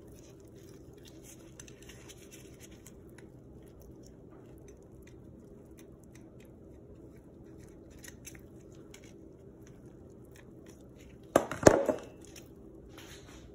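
Small scraping and crunching clicks of a knife blade working inside the belly cavity of a yellowtail snapper, scraping out the blood veins. Near the end comes a short, loud clatter, followed by a smaller one.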